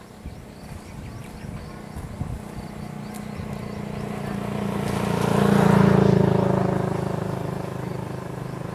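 A motor vehicle's engine passing by. It grows steadily louder to a peak about six seconds in, then fades away.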